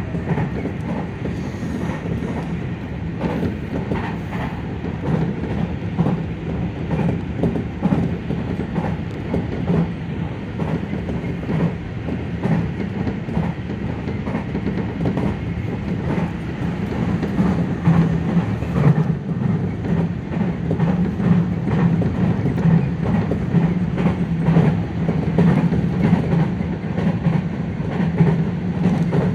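Electric commuter train running at speed, heard from just behind the driver's cab: a steady rolling rumble with frequent clicks of the wheels over the rails.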